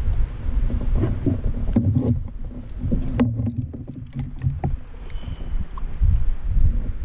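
Handling noise aboard a fishing kayak on the water: a low rumble with scattered knocks and clicks against the hull.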